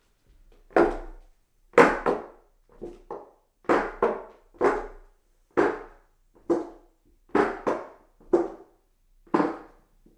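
Footsteps climbing hollow wooden stairs: a knock about once a second, often a quick double strike as heel and toe land on each tread, each with a short resonant ring from the hollow wood.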